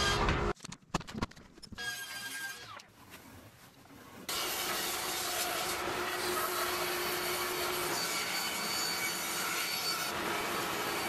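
Bandsaw cutting through a block of wood, a steady sawing noise that starts about four seconds in. Before it, a few sharp knocks and quieter shop noise.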